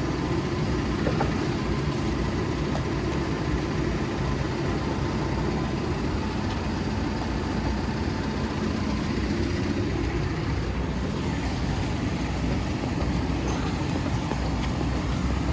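Merlo telescopic handler's diesel engine running steadily.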